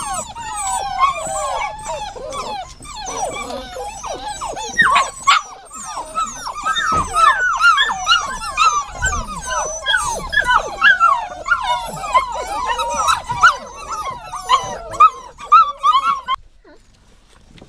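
Dogs whining and yipping, many short overlapping high cries that rise and fall in pitch, cutting off suddenly near the end.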